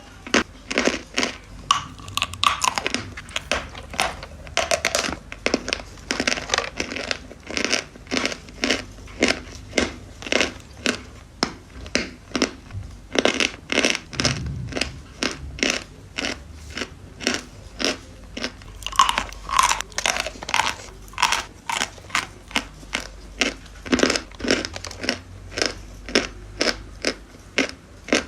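Chalk being chewed: steady crunchy chewing, about two crunches a second.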